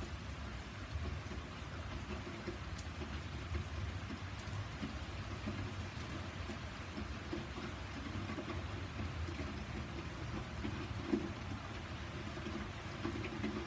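Steady rain falling on a garden, lawn and wet paving, heard from under a covered porch, with scattered individual drop ticks. A low rumble runs underneath, with one short louder knock about eleven seconds in.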